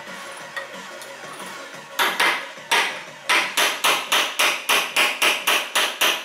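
Steel hammer striking a pin punch set in a moped's front-fork tube, each blow a sharp metallic clink with a short ring. Two single blows come about two seconds in, then a steady run of about four blows a second to the end.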